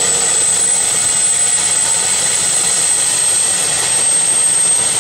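Bell 212-type two-bladed turbine helicopter running on the ground with its rotors turning: a steady high turbine whine over a dense, even rush of engine and rotor noise.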